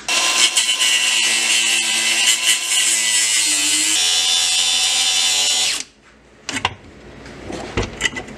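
Cordless Milwaukee M18 angle grinder cutting through the steel of a driveshaft center support bearing carrier, a loud steady grinding whine that shifts pitch partway as the load changes and stops about six seconds in. A few light clicks and scrapes follow.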